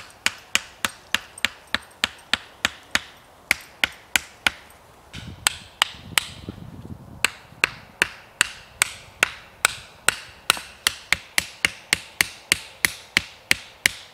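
Wooden stakes being pounded into the ground with an axe: a steady run of sharp knocks, about three a second, with a short break a little before five seconds in.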